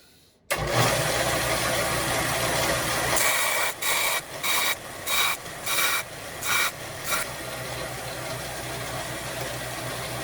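A power grinder starts up and runs steadily, with about six short passes of grinding against metal between about three and seven seconds in, taking the end of the bolt in the repaired lamp leg down flush with the surface.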